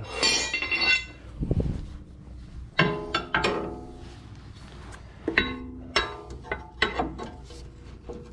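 Metal hand tools clanking against each other and the floor, about half a dozen sharp strikes that each ring on briefly with a bell-like tone.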